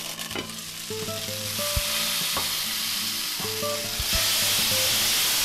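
Butternut squash pieces sizzling as they fry in olive oil over high heat, first muffled under a glass pan lid. The sizzle grows and steps up louder about four seconds in.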